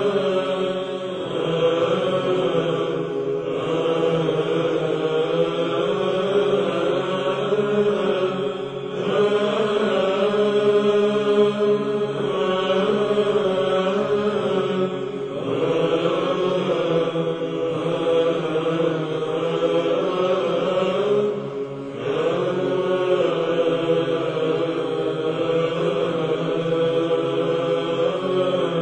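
Orthodox Byzantine chant: slow, ornamented singing in long phrases over a steady held drone, with brief breaths between phrases.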